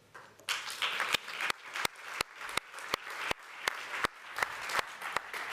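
Audience applause starting about half a second in, with sharper, louder single claps standing out about three times a second.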